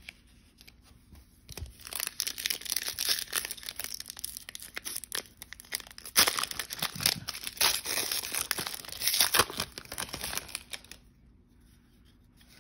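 Foil wrapper of a trading card pack being torn open and crinkled: a dense, crackling run of rustles that starts a second or two in and stops about a second before the end.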